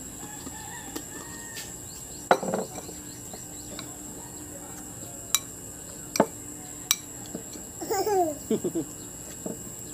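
Metal spoon clicking against a ceramic bowl several times as shrimp paste is scooped and stirred, the sharpest knock about two seconds in, over a steady high drone of insects. Near the end a toddler gives a short burst of babbling.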